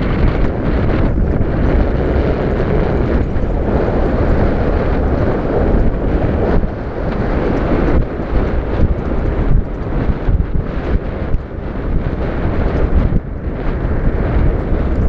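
Open-sided safari vehicle driving along a dirt track, its engine running under heavy wind noise buffeting the microphone in short irregular gusts.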